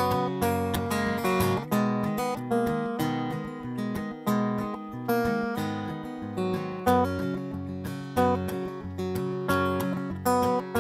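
Acoustic guitar strumming chords in an instrumental passage of a live song, with no singing.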